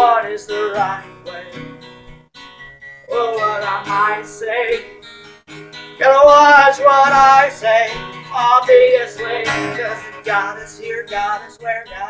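A man singing over strummed acoustic guitars, with a second guitar-like stringed instrument played alongside; the sung phrases come loudest in the middle of the stretch.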